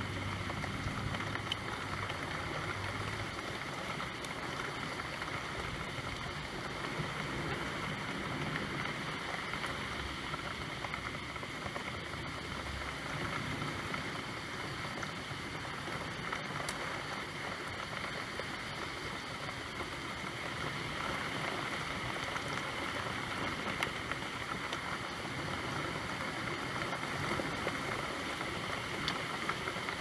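Steady falling rain, an even hiss that keeps up without a break.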